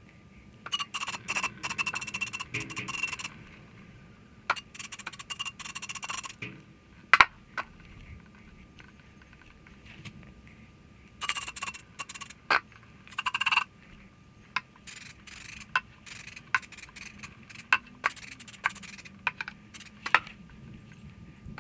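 Aerosol brake cleaner hissing in repeated short bursts as it is sprayed into a motorcycle fork slider, with a few sharp knocks and clinks of the metal tube.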